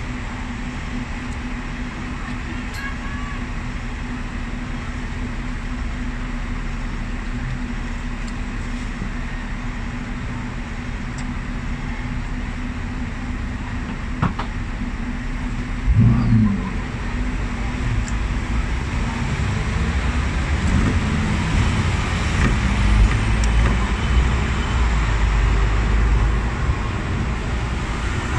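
Hong Kong double-decker electric tram, heard from on board: a steady hum while it stands at a stop, then a thump about halfway through as it pulls away. A low rumble of wheels on rails grows louder as it gets moving, with road traffic around it.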